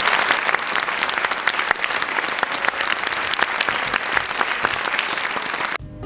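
Audience applauding, a dense, steady clatter of many hands clapping. It cuts off abruptly near the end.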